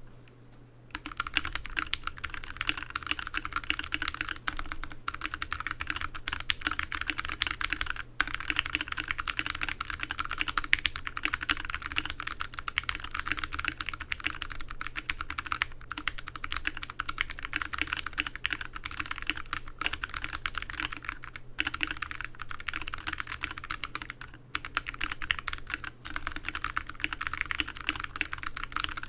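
Fast, continuous typing on a TADA68 mechanical keyboard with Outemu Ergo Clear switches lubed with Tribosys 3204, in a wooden case with foam between the PCB and plate and between the PCB and case. The typing starts about a second in and runs on with a few brief pauses.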